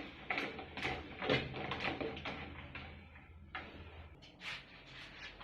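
Kitchen handling noises: a run of short knocks and clatters, busiest in the first two and a half seconds, then a few scattered ones.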